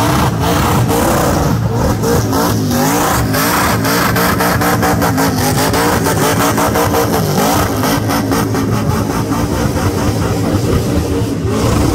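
Supercharged burnout car's engine held at high revs during a burnout, its pitch wavering up and down, with a rapid crackle of sharp pops over it and spinning tyres underneath.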